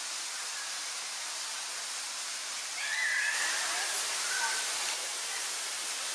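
Steady rushing hiss of outdoor background noise, with a few brief faint high chirps about three and four seconds in.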